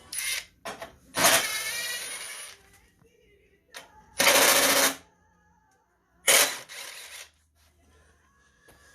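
A cordless power driver run in four short bursts of about half a second to a second and a half each, with a rattling whine, as fasteners are worked on the snowblower.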